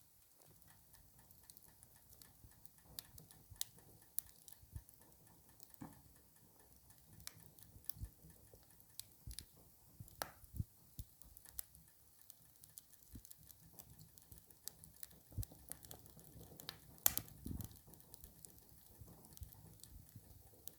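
Wood fire crackling faintly, with irregular sharp pops and snaps and one louder pop about 17 seconds in.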